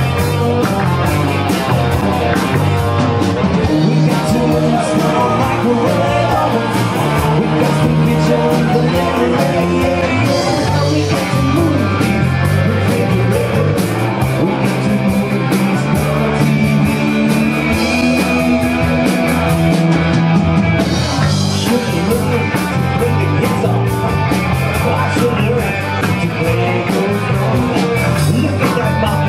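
Live rock band playing loudly: distorted Les Paul-style electric guitars over a drum kit with steady cymbal hits, and a male singer singing into the microphone.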